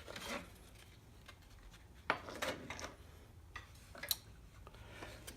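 Scattered light clicks, taps and rubbing of parts being handled and fitted together while reassembling a drill-press drum sander jig. The sharpest taps come about two seconds in and again near four seconds.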